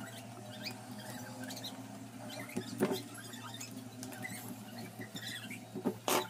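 Hand screwdriver turning the screws in an angle grinder's metal gear-head housing: small squeaks and ticks as the tip works in the screw heads, with a knock of tool handling about three seconds in and another near the end, over a steady low hum.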